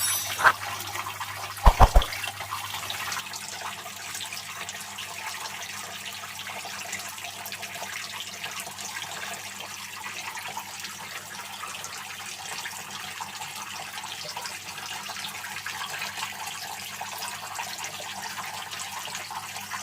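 Homemade tabletop fountain running: water splashing and trickling steadily, with a faint steady low hum underneath. A few sharp knocks sound in the first two seconds.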